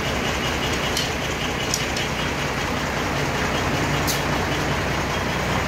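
Band sawmill machinery running steadily without cutting yet, with a few light clicks about one, two and four seconds in.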